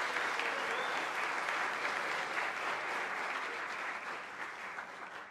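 Audience applauding after a choir's song, the clapping slowly dying away near the end.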